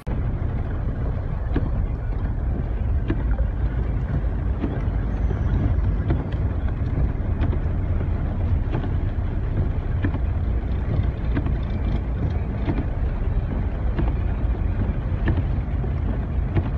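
Violent storm wind buffeting the microphone: a loud, steady rush heaviest in the low end, with many scattered ticks.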